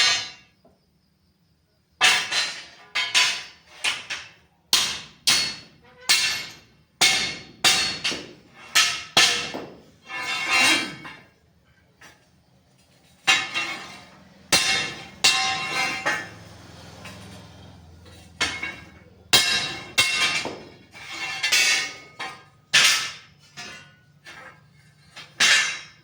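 Hammer blows on steel angle iron, a string of sharp ringing metal strikes about one to two a second, with a pause of a couple of seconds about halfway through.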